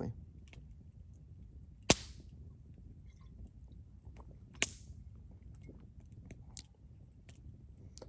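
Campfire crackling quietly, with two sharp pops about two seconds and four and a half seconds in and a few fainter ticks between.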